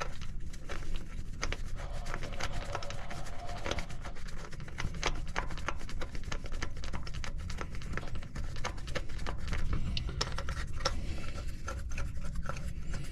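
Scattered light clicks and scrapes from a hand fitting the aluminium oil filter cover and its screws on a Can-Am Defender's engine.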